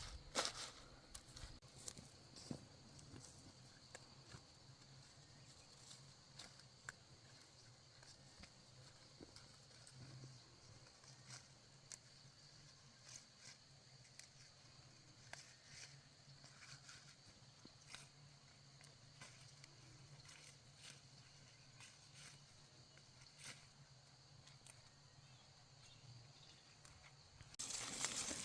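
Near silence: faint outdoor background with scattered soft ticks and rustles, and a louder burst of noise near the end.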